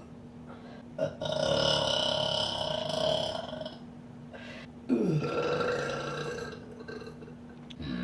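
A woman burping, two long burps. The first starts about a second in and lasts about two and a half seconds; the second starts about five seconds in with a falling pitch and trails off over about two seconds.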